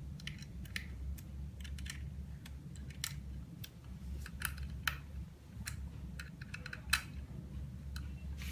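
Irregular small metal clicks and taps of a hand tool on the mold screws of an OCA laminating machine as they are loosened, over a steady low hum.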